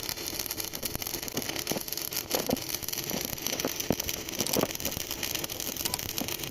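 Stick-welding arc burning: a steady crackling hiss with irregular sharp pops.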